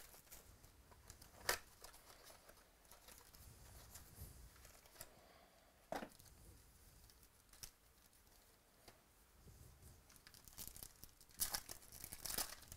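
Plastic wrapper and a foil trading-card pack being handled, with a few faint isolated crinkles, then a burst of crinkling and tearing near the end as the foil pack is ripped open.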